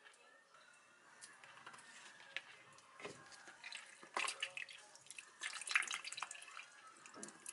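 Soy milk poured in a thin stream into a plastic blender jug onto pieces of cooked sweet pumpkin, splashing and trickling, loudest about four seconds in and again near six seconds.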